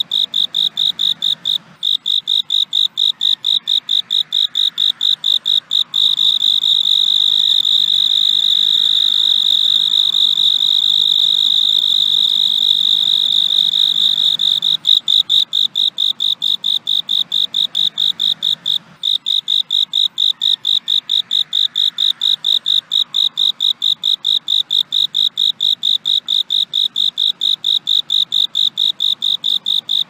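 A cricket chirping in a high, rapid, even pulse. For about nine seconds in the middle it runs into one unbroken trill, then goes back to pulsing, with a couple of brief pauses.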